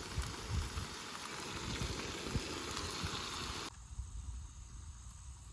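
Pork sizzling as it cooks, a steady hiss that cuts off suddenly about three and a half seconds in. After that, wind rumbles on the microphone.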